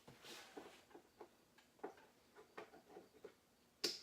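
Faint, scattered clicks and taps of equipment being handled, with one sharp, louder click near the end.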